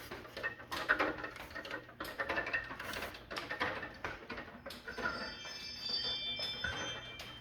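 A ladder being moved, with a quick run of rattles, knocks and clatters. About five seconds in, several thin high tones join in and last to the end.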